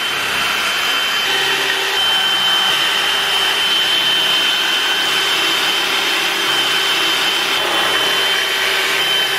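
A DeWalt cordless drill runs steadily at constant speed, boring a pocket hole through a pocket hole jig into a pine 2x4. The motor gives a steady high whine over the noise of the bit cutting wood.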